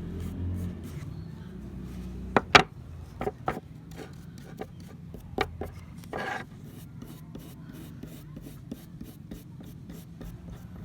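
Hand work on old pliers: rubbing and scraping, with a cluster of sharp knocks and clicks between two and four seconds in, another near five and a half seconds and a short scrape just after, over a steady low hum.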